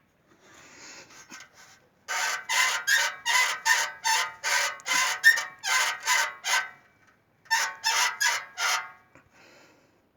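Exhaust muffler of a Geely CK-2 squeaking in a steady rhythm, about two to three squeaks a second, with a short break before a second run of squeaks. The squeak persists even though everything has been lubricated.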